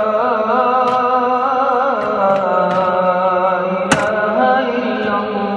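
Muezzin's voice calling the closing words of the adhan in a long, ornamented melisma that wavers in pitch and settles into a held note about two seconds in. A sharp click sounds just before four seconds in.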